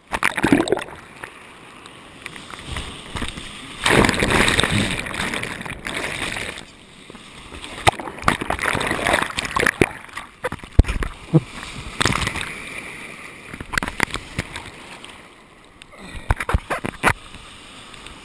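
Breaking surf splashing and churning right over a camera in a waterproof housing at water level, with surges of whitewater every few seconds and many sharp slaps of water against the housing.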